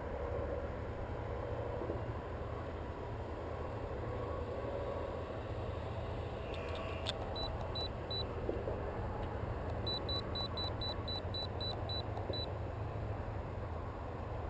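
Radio-control transmitter beeping: short high-pitched electronic beeps, three about halfway through, then a quicker run of about ten at roughly four a second, of the kind the radio gives when trims are stepped. A steady low rumble lies under them.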